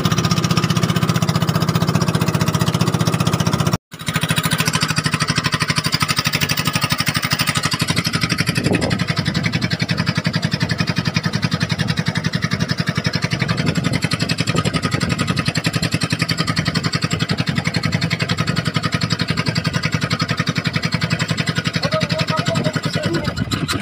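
Engine of a small wooden fishing boat running steadily under way, with a rapid even pulse, cutting out for an instant about four seconds in.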